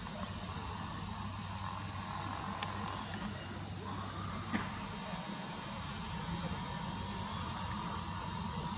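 Steady distant engine noise: a low hum with a faint held whine above it, and a few light clicks.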